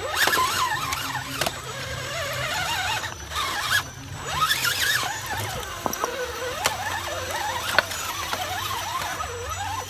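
Electric motor and gears of an RC rock crawler whining, the pitch rising and falling as the throttle is worked, with a few sharp clicks as it crawls over rocks.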